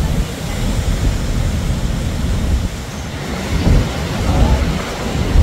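Rhine Falls roaring close at hand, a dense rush of falling water, with wind gusting on the microphone.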